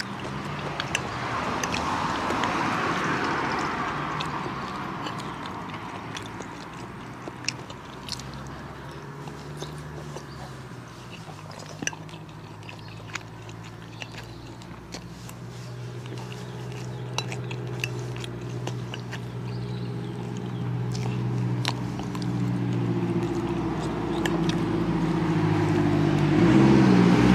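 Chewing and a metal fork clicking against a plate, over the steady hum of a motor vehicle's engine that grows louder toward the end.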